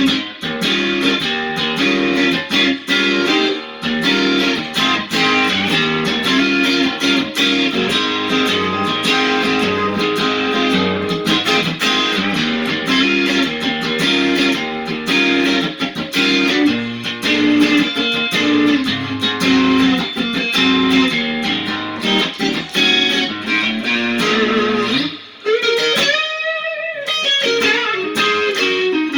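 Electric guitar, a Black1 Strat-style clone, played through a Lovepedal Supersix overdrive pedal into a Fender Hot Rod Deville amp, riffing with chords and single notes. Near the end comes a note bent up with wide vibrato.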